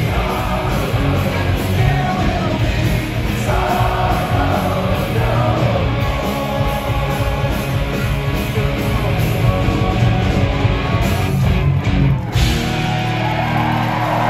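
Punk rock band playing live at full volume: distorted electric guitars, bass and drums under sung vocals. About twelve seconds in the band hits a couple of sharp stops, then a final chord is left ringing.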